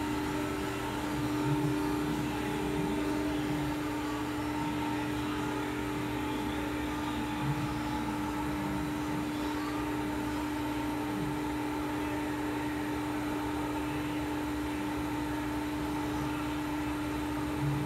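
Amada FBD-8025 hydraulic press brake switched on and idling: a steady, unchanging hum from its hydraulic pump and motor.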